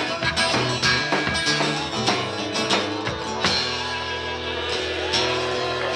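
Live acoustic guitar strummed with a drum kit keeping time. About halfway in, the drum hits thin out and held notes ring on.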